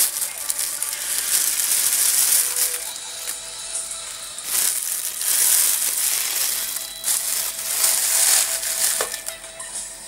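Rustling and hissing from a small object handled right next to the microphone, coming in four swells of a second or two each.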